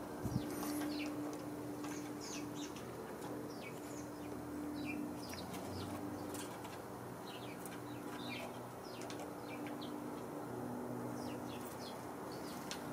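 A flock of house sparrows chirping, many short chirps overlapping irregularly, over a low steady hum.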